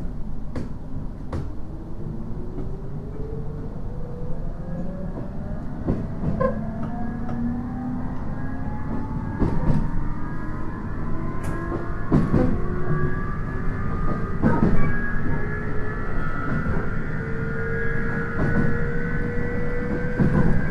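JR East 719 series electric train accelerating, heard from inside the car: the motor and gear whine climbs steadily in pitch over a low running rumble, with scattered rail-joint clicks. This set is singled out as an abnormally noisy unit.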